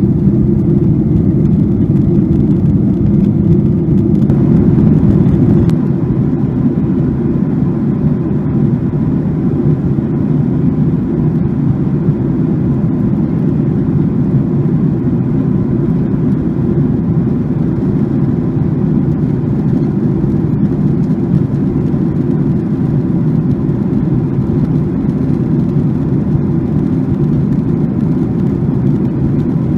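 Steady airliner cabin noise heard from a window seat: the low, even rush of the jet engines and the air streaming past the fuselage. About five seconds in, the noise drops a little and a faint steady whine appears.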